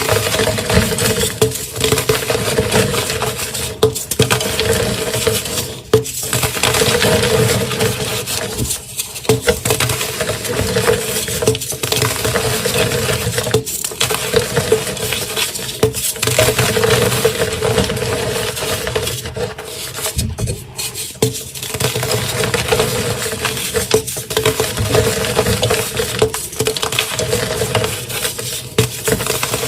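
Dyed gym chalk blocks being crushed: continuous dry crunching and crumbling, broken by brief pauses every two to three seconds.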